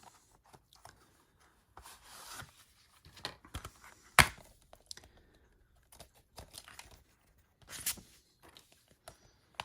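Hands handling Blu-ray disc cases and packaging: rustling with scattered clicks, a sharp click about four seconds in and another near eight seconds.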